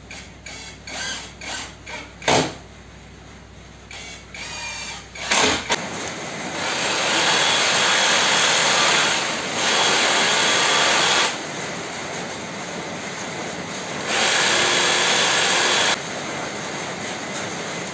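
Cordless drill/driver driving screws into a pine frame in short bursts, with a sharp click about two seconds in. Then, from about six seconds in, a cordless power saw cutting the wood, loud in three stretches with lower running between.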